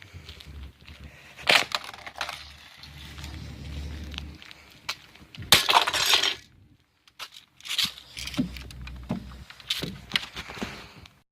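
Alarm clock being smashed apart: a series of hard blows at uneven spacing with things breaking, the loudest about five and a half to six seconds in.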